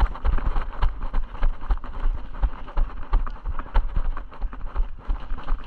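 Footsteps of a person running on open ground, uneven thuds several times a second.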